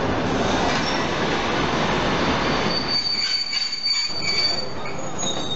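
Old railway passenger coaches rolling slowly past close by, their wheels rumbling over the rails. About halfway through, a high, steady wheel squeal sets in over the rumble and runs on to the end.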